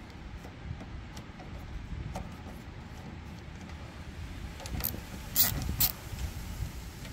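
Socket ratchet wrench turning 10 mm nuts on a small engine: a few faint clicks, then a short run of louder metallic clicks about five seconds in.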